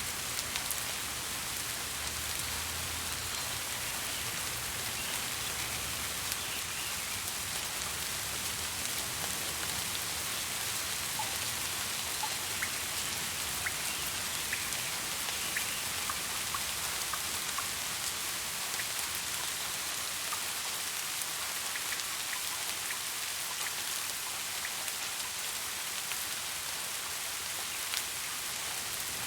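Steady rain falling on surfaces, an even hiss with scattered individual drops. A faint low rumble sits under it in the first few seconds.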